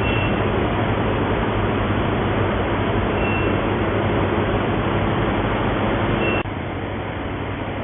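Induction gold melting furnace and its cooling fan running: a steady hum with an even rushing noise and a few faint, short high tones. About six and a half seconds in, the level drops suddenly and the running continues more quietly.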